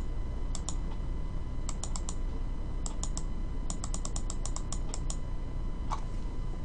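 Quick light clicks in irregular runs, some close together and some spaced out, over a faint steady hum.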